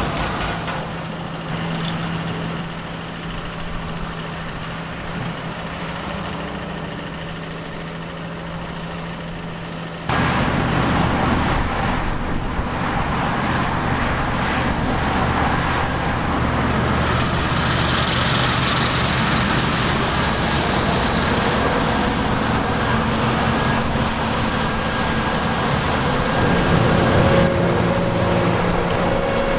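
Diesel engines of harvest machinery running steadily. About ten seconds in there is an abrupt cut to a louder, deeper machine.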